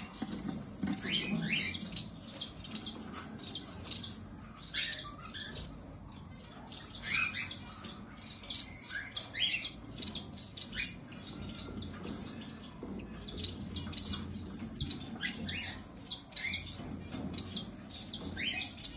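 Baby parrots calling with a continuous run of short, high chirps and squawks, many of them sliding down in pitch.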